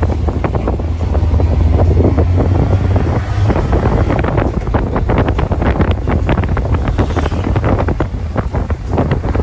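Wind buffeting the microphone of a phone held on a moving motorcycle, in irregular gusts over a steady low rumble of engine and road noise.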